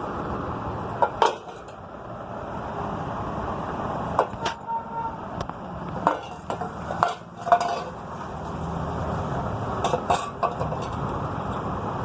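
Scattered sharp metallic clinks and knocks, a dozen or so, over a steady background rumble.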